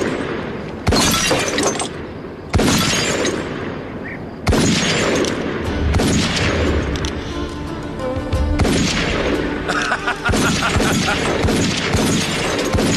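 A string of revolver shots, each followed by glass bottles shattering, coming roughly every one and a half to two seconds. Film music with held notes comes in underneath about halfway through.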